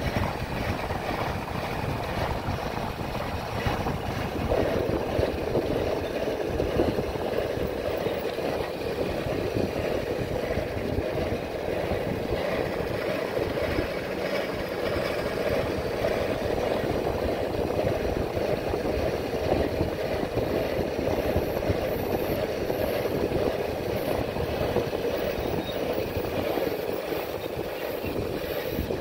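Steady rumbling wind and road noise from a moving bike.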